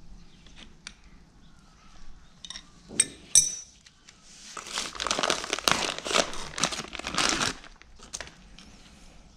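Hand work on a tractor PTO shaft universal joint: a few sharp metal clinks of the yoke, spider and wrench, the loudest two close together a few seconds in. Then about three seconds of dense crackling, crinkling handling noise before it settles again.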